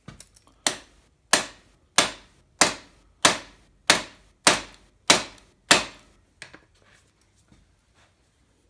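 Hammer blows on a bearing install tool, driving a main bearing into a cast engine block: nine sharp metallic strikes, each ringing briefly, about one and a half a second, with a few lighter taps before and after.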